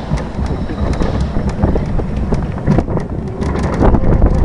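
Steel mine-train roller coaster running along its track, heard from the front car: wheels rumbling and clattering on the rails, with wind buffeting the microphone. It gets louder near the end.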